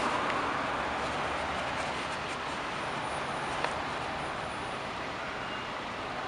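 Street traffic noise: a steady hiss of vehicles and tyres, easing slightly after the start, with one small click about three and a half seconds in.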